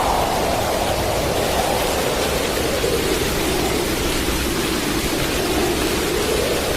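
Hurricane wind and heavy rain: a loud, steady rush whose pitch slowly sinks and then rises again.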